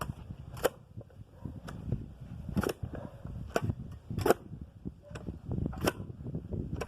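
A post-hole digger being driven into soil, with repeated sharp strikes roughly once a second as the hole is dug.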